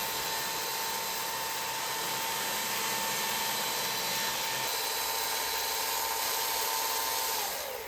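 Electric power tool running at a steady speed with a constant whine, then winding down with falling pitch near the end as it is switched off.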